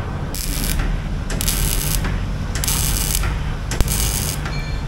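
MIG welding on a motorcycle exhaust pipe: the arc sizzles in short bursts about once a second, over a steady low hum. There is one sharp click about four seconds in.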